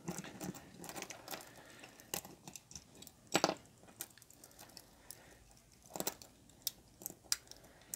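Light scattered clicks and small rattles of a white plastic movement-holder ring being pressed and worked into an open stainless steel watch case by hand. A few sharper clicks come about two, three and a half, and six seconds in.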